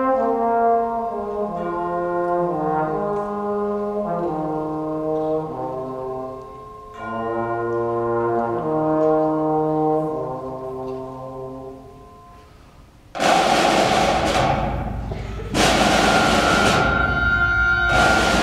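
Symphonic wind band playing: the brass hold slow chords that move step by step and die away about twelve seconds in. About a second later the full band and percussion come in loudly, break off briefly and come back.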